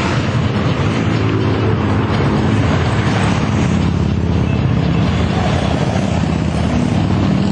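Motorcycle engines running steadily at cruising speed, their pitch drifting slightly, over a constant rush of wind and road noise.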